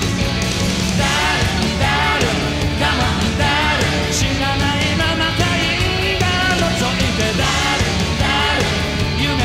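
Live rock band playing, with a male lead vocalist singing into a microphone over drums and keyboards.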